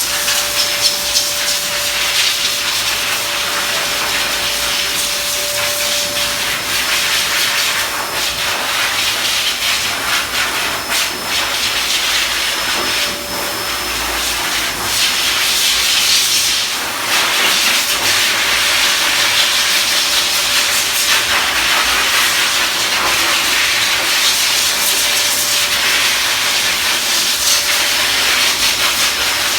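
Pet-grooming blow dryer running: a loud, steady rush of air with a faint steady whine in it.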